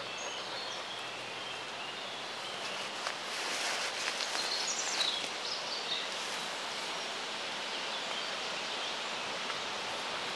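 Outdoor ambience: a steady rustling noise, with a few short, high bird chirps about halfway through.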